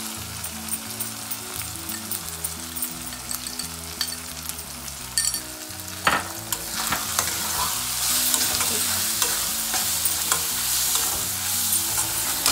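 Onions and spice powders sizzling in a kadai, stirred with a metal spatula that scrapes and clicks against the pan. The frying grows louder about halfway through.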